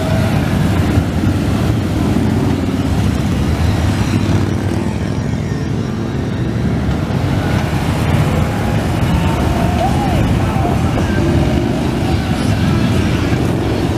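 Heavyweight Harley-Davidson V-twin cruiser and touring motorcycles riding past one after another, a continuous loud engine rumble. It eases a little about five to seven seconds in, then builds again as the next group of bikes passes.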